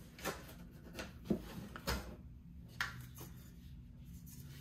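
Handling noise from an AR-15-style rifle held in the hands: about six light clicks and knocks in the first three seconds as it is moved, then quiet handling.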